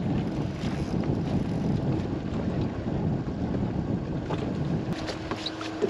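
Wind buffeting the microphone on an open boat, a dense low rumble with a faint steady hum underneath and a few light ticks near the end.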